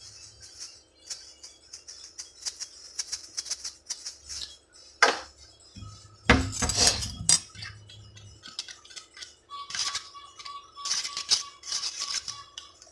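Utensil clinking and scraping in a bowl as a sour-cream sriracha aioli is stirred, with two loud knocks on the counter about five and six seconds in.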